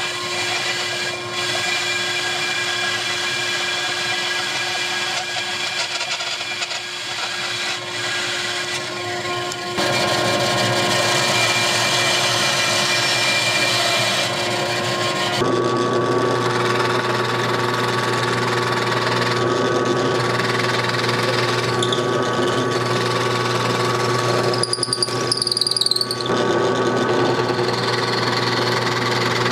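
Bandsaw running and cutting through a strip of wood, growing louder about ten seconds in; about halfway through the sound changes to a drill press running with a low motor hum as the bit bores into a wooden block.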